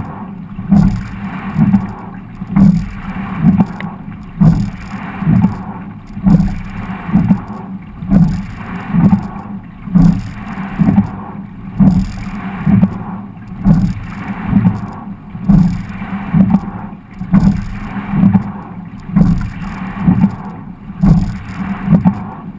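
Quadruple scull being rowed hard: rhythmic thumps about once a second from the strokes, over water rushing along the hull.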